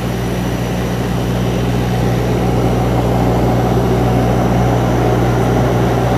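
Steady cabin drone of a turboprop airliner in flight: the engines and propellers hum low over a broad rush of air noise, swelling slightly over the first couple of seconds.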